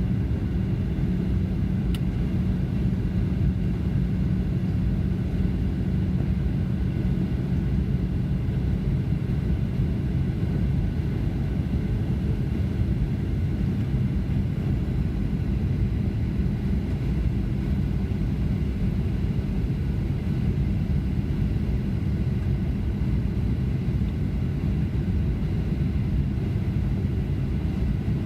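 Boeing 737-900 airliner heard from inside the cabin in flight: a steady drone of engines and airflow with a low hum, unchanging throughout.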